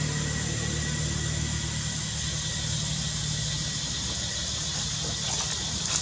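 Steady low hum of an idling engine over a background hiss; the hum eases off a couple of seconds in.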